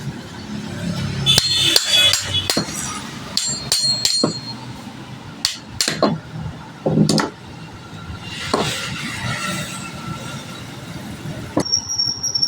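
Metal parts of an angle grinder being tapped and knocked during disassembly: a quick run of sharp metallic clinks that ring briefly, then a few separate heavier knocks. A short high-pitched tone comes in near the end.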